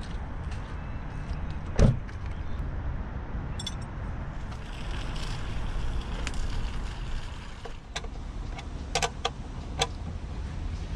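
A car door shuts with a single thump about two seconds in, over a steady low rumble. Later come a few light metallic clicks and clinks as a spanner works the bolts on a manta net's aluminium frame, most of them near the end.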